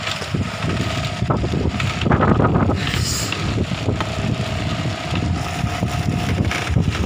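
Strong storm wind gusting and buffeting the microphone in a dense low rumble, with a faint steady tone running through most of it.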